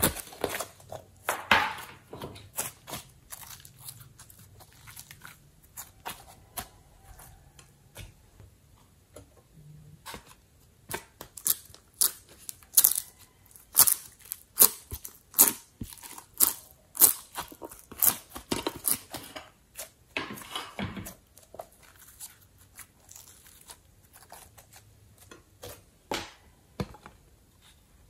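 Close-up handling of slime-making materials: irregular sharp crunching, crackling and tearing snaps in clusters, busiest from about ten to twenty seconds in.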